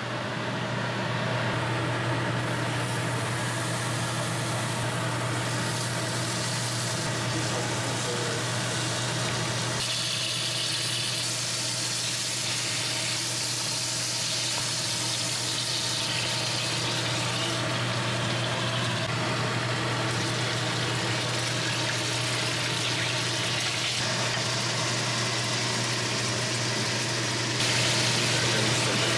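A steady low mechanical hum with a continuous hiss over it. The hiss shifts in character about a third of the way in and grows a little louder near the end.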